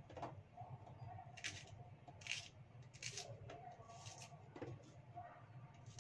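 Faint food-prep sounds: a handful of short crisp snicks as shallots are sliced by hand with a small knife over a steel bowl, over a low steady hum.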